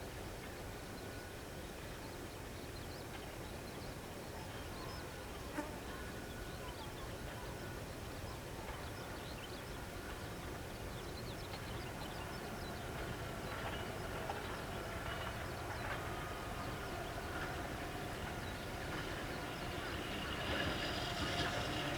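An Ohmi Railway electric train approaching, its running sound growing gradually louder from about halfway through, with a faint steady whine rising toward the end.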